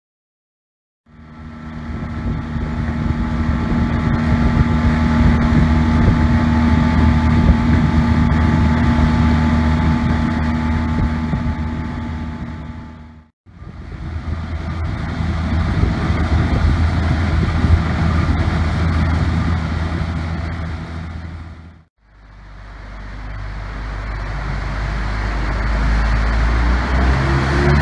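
Motor of a small boat running steadily under way, with wind on the microphone. The sound fades in about a second in and drops out briefly twice, near the middle and about two-thirds of the way through.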